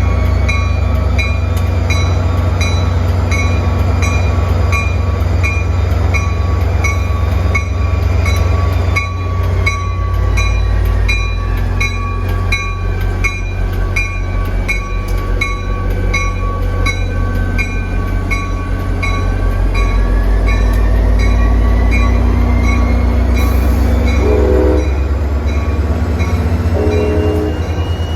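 Diesel locomotive running close by with a steady heavy rumble, while a bell rings about twice a second. Short horn blasts sound twice near the end.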